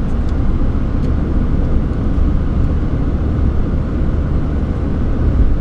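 Steady low road rumble inside a car's cabin as it drives at highway speed.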